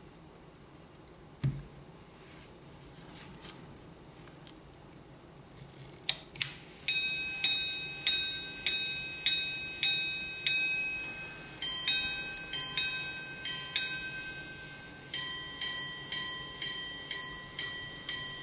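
Antique gold minute-repeating pocket watch striking the time on its gongs after a click of the repeater mechanism: slow single strikes on one gong for the hours, then paired two-note strikes for the quarters, then quicker single strikes on the other gong for the minutes. Before it there is a soft knock and some handling of the case.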